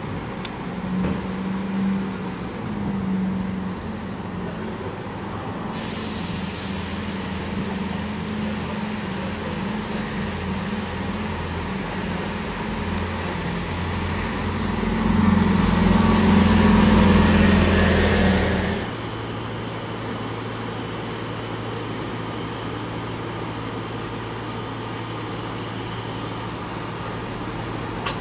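City bus engines running, with a steady low engine hum and a hiss over it. The sound swells as a bus pulls away and drives close past, loudest about two-thirds of the way through. It then cuts off suddenly, leaving a quieter, steadier engine hum.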